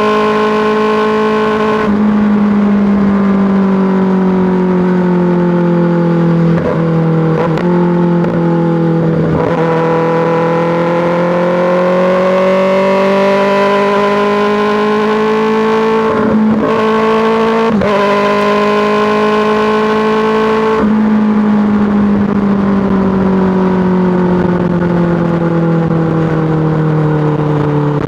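2024 Kawasaki ZX-6R's inline-four running through an M4 GP slip-on exhaust while riding at part throttle, the engine speed sinking, then climbing steadily, then sinking again. The note is broken by a few short gaps.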